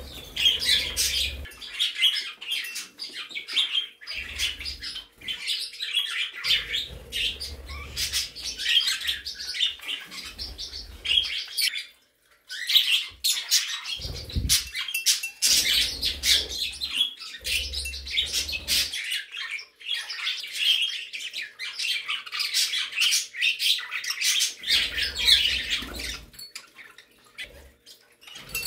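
A mixed flock of pet budgies, cockatiels, canaries and other small parakeets chirping and chattering non-stop, with squawks now and then. The chatter thins out briefly about twelve seconds in.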